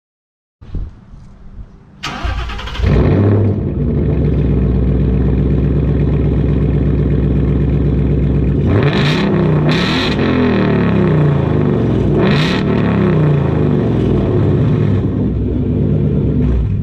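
2019 Ford Mustang GT's 5.0-litre V8 starting through a Flowmaster H-pipe and Outlaw axle-back exhaust with the active valves removed: it fires about two seconds in with a brief flare and settles to a deep idle. From about nine seconds in it is revved several times, the pitch rising and falling, before dropping back to idle.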